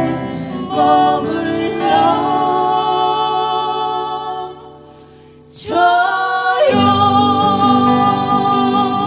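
A singer holds long notes over a backing track at the close of a Korean ballad. About halfway through the music drops away briefly, then a new note slides up and is held.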